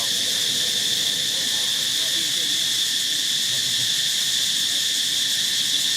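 Insect chorus: a steady, unbroken high-pitched drone.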